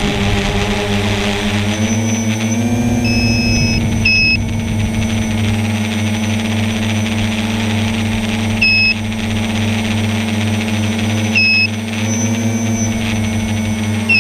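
Tricopter's three Sunnysky 1400 kV brushless motors spinning 9x4.5 propellers in flight, a steady multi-toned whine that rises in pitch about three seconds in. High electronic beeps sound over it: one longer beep about three seconds in, then short ones roughly every three seconds.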